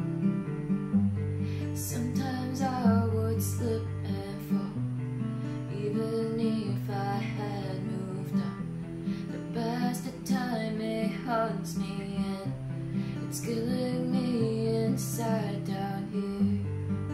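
Steel-string acoustic guitar playing chords, with a girl singing phrases over it.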